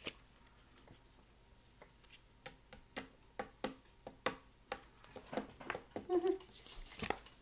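Collectible trading cards being handled and laid down on a tabletop: a run of irregular light clicks and taps.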